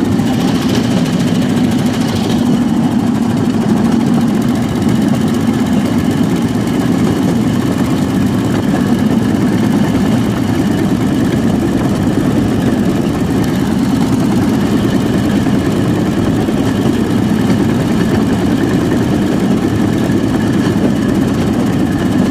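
8 hp Briggs & Stratton single-cylinder engine on a homemade rail kart, running steadily and loudly under load as the kart rolls along the rails.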